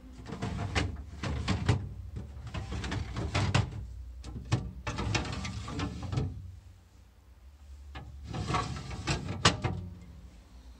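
Refrigerator glass shelves and plastic drawers being handled, knocking, rattling and sliding in two stretches of clatter with a short pause between. A steady low hum runs underneath.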